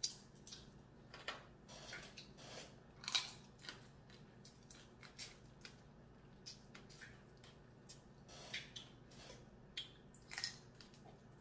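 Blue crab shell being cracked and broken apart while eaten, with irregular sharp cracks and clicks, the loudest about three seconds in and another cluster near the end.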